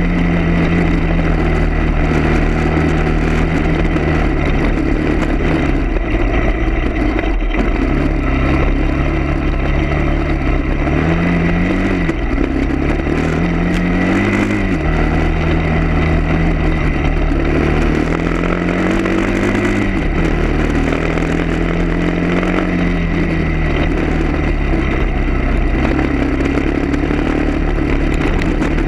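A vehicle engine running under way, its note climbing and then dropping back several times, as at gear changes.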